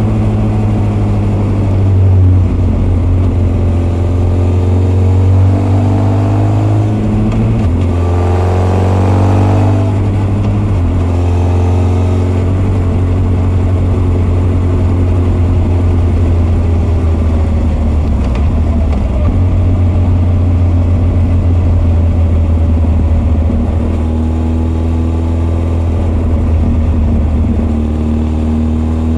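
Honda CB1300 SF inline-four motorcycle engine breathing through Keihin FCR41 carburettors and an r's gear Wyvern full exhaust, ridden hard on the road with its revs rising and falling. The revs climb twice in the first ten seconds, each time dropping back sharply, hold fairly steady through the middle, then climb again near the end.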